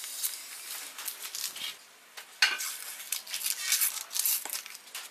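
A sheet of sandpaper being folded and torn by hand: dry crackling and rustling in quick irregular bursts, with the loudest, sharpest crackle about halfway through.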